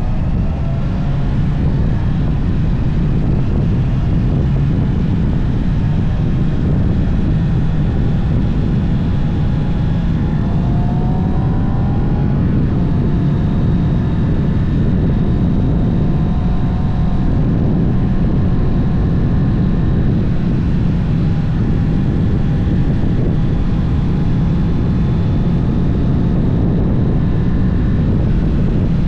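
Honda CB650R's inline-four engine running through its stock exhaust under way, mixed with wind rushing over the microphone. The engine note glides up and shifts pitch around the middle as the revs change.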